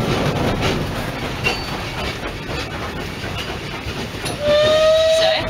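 Narrow-gauge train running with wheel clicks, then a steam locomotive whistle sounds once for about a second near the end, rising slightly in pitch.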